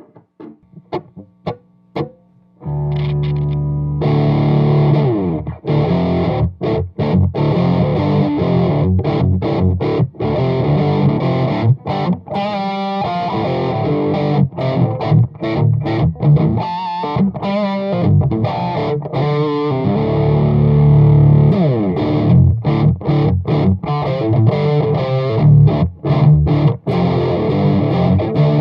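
Electric guitar through a Bogner Burnley distortion pedal into an Ampeg GVT5H valve amp on low power and a 2x12 cabinet. A few single picked notes, then heavily distorted rock chords and riffs from about three seconds in.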